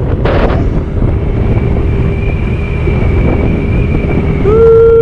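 Motorcycle cruising at about 60–65 km/h, with wind rushing over the microphone and the engine running steadily underneath. About four and a half seconds in, a loud steady tone starts and holds.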